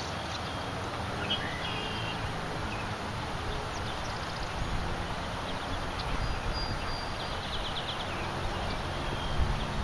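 Outdoor lakeshore ambience: a steady rush of wind over rippling water, with a few faint short bird calls. Wind begins to buffet the microphone near the end.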